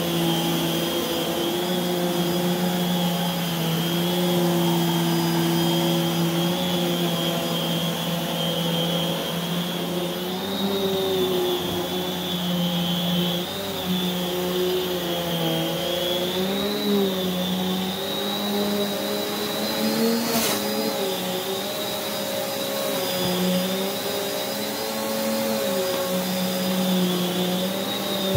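Prolux X8 Elite backpack vacuum running with its EBK360 power nozzle on carpet: a steady motor hum with a high whine, the pitch wavering slightly now and then. A single brief click about two-thirds of the way through.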